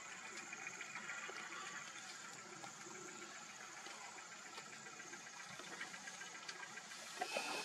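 Faint, steady outdoor background noise with a thin high-pitched hiss, and a brief louder sound near the end.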